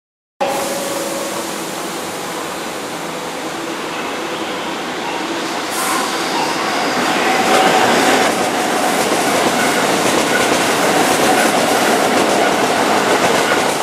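Keihan 9000 series VVVF-inverter electric train running slowly round curved track, getting louder as it nears about six seconds in, with its wheels rattling over the rails and a faint steady whine.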